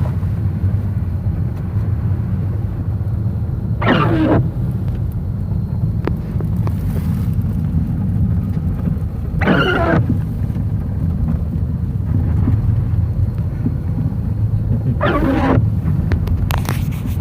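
Steady low rumble of a vehicle driving off-road, with a short higher sweeping sound three times, about five and a half seconds apart.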